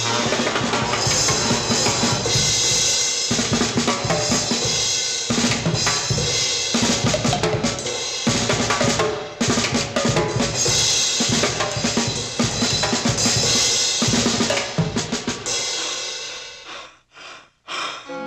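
Animated-cartoon orchestral score driven by busy snare drum, bass drum and cymbal percussion, dying down with a few short gaps near the end.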